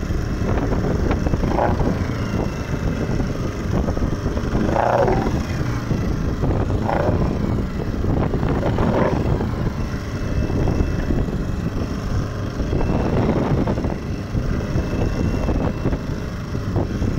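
Small fishing boat under way: its motor running steadily, water rushing and splashing along the wooden hull, and wind buffeting the microphone, with a few short louder splashes.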